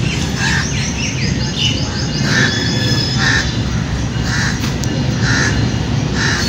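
Crows cawing again and again, roughly once a second, with quicker chirping calls in the first couple of seconds, over a steady low rumble.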